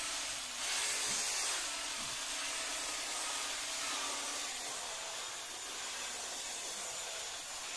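Parkside PAAP 12 C3 polisher running at its lowest speed, a steady whirring hiss as its foam pad rubs leather cleaner into a faux-leather chair back.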